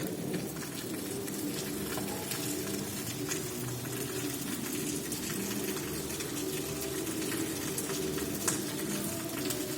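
Heavy rain falling steadily, with many sharp drop ticks over a low rushing sound.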